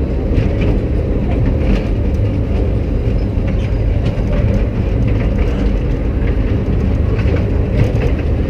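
Kiddie train ride car running along its track: a steady low rumble with light scattered rattling clicks.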